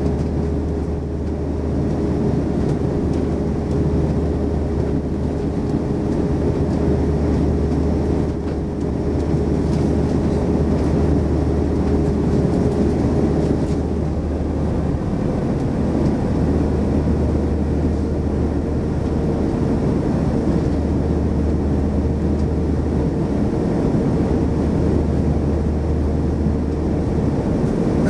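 Cabin noise of an Airbus A340-500 taxiing, its Rolls-Royce Trent 500 engines running at taxi power: a steady low rumble with a steady hum that steps up a little in pitch about halfway through.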